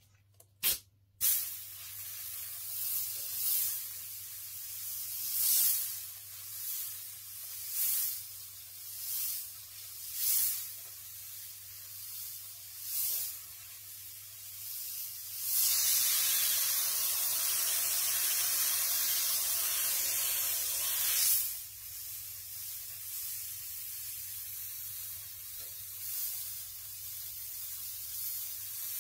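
Airbrush spraying paint: a continuous high hiss that swells briefly every second or two as the trigger is worked, then one long, louder spray lasting about five seconds roughly halfway through, before settling back to a steady hiss. A faint low hum runs underneath.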